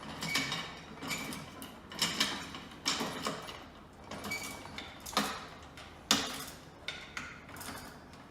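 The lid lock on a Rhino Pro gumball machine being turned and tightened: irregular clicks and knocks, about one a second, some with a brief metallic ring.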